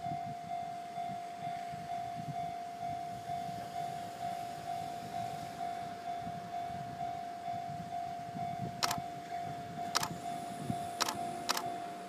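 Japanese level-crossing warning bell ringing, a steady repeated electronic ding about twice a second, signalling that a train is approaching. From about nine seconds in, a few sharp clicks come at irregular intervals.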